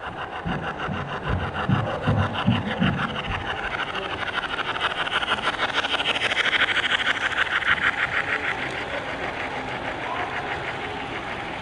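HO scale model train, a steam locomotive and boxcars, rolling along the track: a dense, rapid clicking of wheels over the rails that grows louder as the train passes close and eases near the end.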